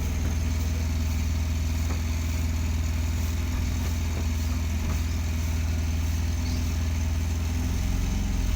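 Engine running steadily at low revs, an even idle with no change in pitch.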